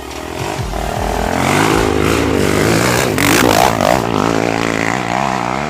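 Single-cylinder four-stroke dirt bike engine accelerating hard: the note climbs over the first few seconds, then holds high with an uneven, wavering pitch.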